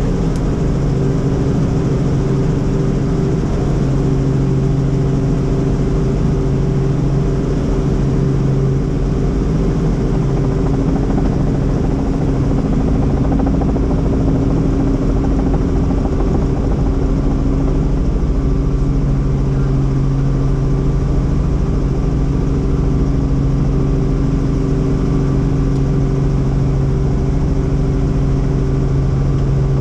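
Helicopter running steadily: a constant drone of rotor and engine with a few steady low tones.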